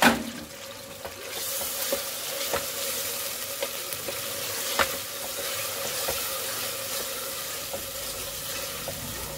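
Browned onions with ginger-garlic and green chilli paste sizzling in hot oil in an aluminium pressure cooker, stirred with a wooden spoon that clicks and scrapes against the pot. There is a sharp knock right at the start, and the sizzle swells about a second in.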